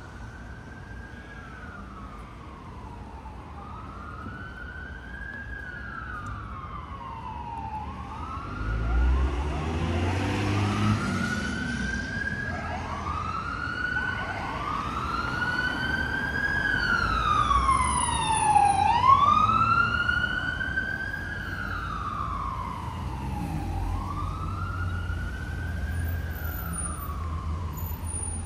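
Emergency vehicle siren wailing, its pitch sliding slowly up and down every few seconds. It grows louder toward the middle, where a second wail overlaps it and a heavy vehicle's engine rumbles past, then fades a little.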